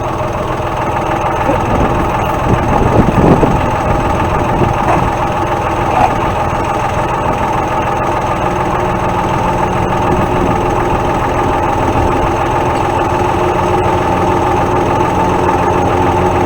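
Tractor engine running steadily, with a louder, rougher stretch about three seconds in, as the three-point hitch is put to work lifting a box blade.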